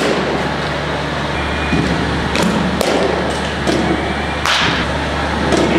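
Several sharp knocks of bats hitting balls in indoor batting cages, over a steady low hum.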